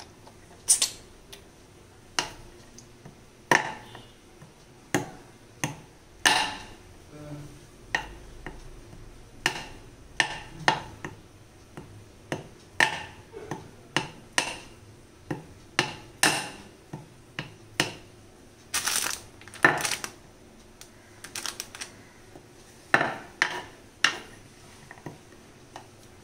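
Kitchen knife chopping a bar of dark chocolate on a wooden chopping board: sharp knocks of the blade striking the board, roughly one a second, with a few quick runs of strokes.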